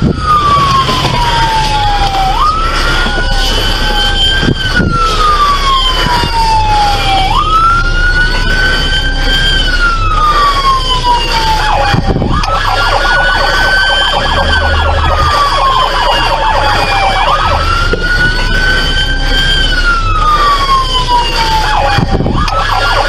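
Police car siren on wail, each cycle jumping up quickly and then sliding slowly down, repeating about every five seconds, with the low rumble of the patrol car running underneath.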